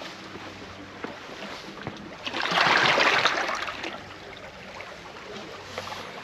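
Seawater surging and sloshing among concrete tetrapods, a rush that swells and fades over about a second and a half near the middle, over light scuffs and ticks.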